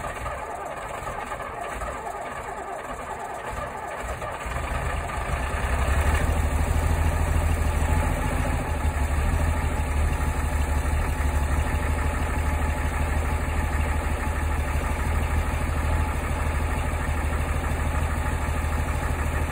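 Saurer 2DM military truck's six-cylinder diesel engine running cold just after a cold start. About four to five seconds in it gets louder and deeper, then settles into a steady low running note.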